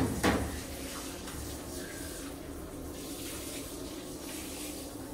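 Steady running water in a stainless steel ozone spa tub, with a faint steady hum beneath it. A single short knock comes just after the start.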